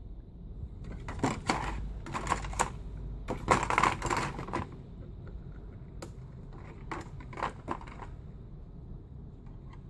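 Hard plastic being handled: a toy quadcopter's plastic body knocking and clicking against its thin plastic packaging tray as it is turned over and set down, with crinkling of the tray. The clicks come in a dense cluster from about a second in to midway, then a shorter one near the end.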